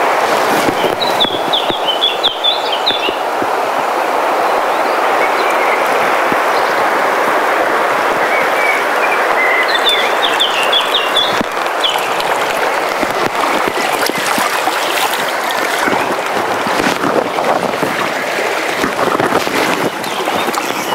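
Shallow river rushing steadily over stones in a riffle, with a bird chirping in two short runs, about a second in and again about ten seconds in.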